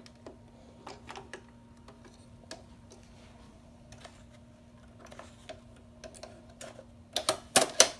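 Light, scattered clicks and taps of hands and thread working around the needle of a home embroidery machine as it is rethreaded with a new thread colour, with a few louder, sharper clicks near the end. A faint steady hum runs underneath.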